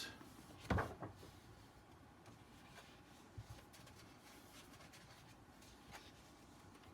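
Quiet handling of a large hardcover book: one soft, short rustle or thump just under a second in, then faint paper rustles and small clicks.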